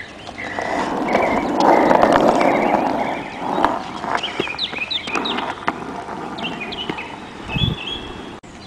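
Skateboard wheels rolling over asphalt: a rough rumble that swells about a second in and dies away after about three seconds, with a few sharp clicks as the board rolls on.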